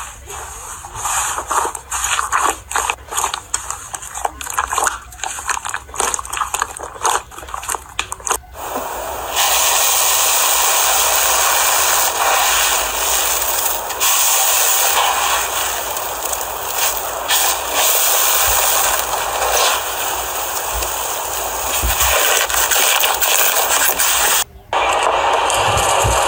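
Slime being worked by hand, with a run of crackles and pops for the first eight seconds or so. It then gives way to a steady hiss that breaks off briefly near the end.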